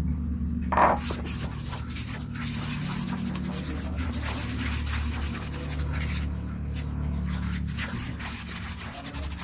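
Spatula stirring dry flour and liquid in a stainless steel bowl, a continuous scratchy scraping against the metal. It starts with a knock about a second in.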